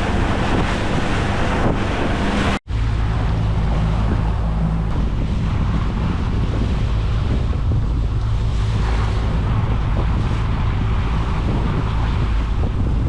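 Boat running at speed: the steady low drone of its engine under heavy wind buffeting the microphone and the rush of water along the hull. The sound cuts out for an instant about two and a half seconds in.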